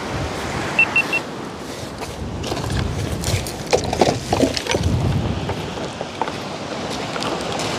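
Steady wash of surf on a pebble beach. About four seconds in, a quick cluster of hollow knocks as pieces of driftwood are picked up and clatter together.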